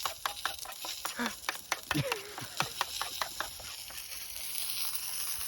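Food frying in a pan on a camp stove: crackling and spitting for the first few seconds, then settling into a steady sizzle.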